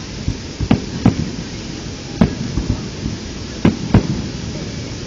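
Fireworks shells bursting: a string of sharp, irregular bangs, about half a dozen, the loudest a pair about three and a half seconds in, over a steady background hiss.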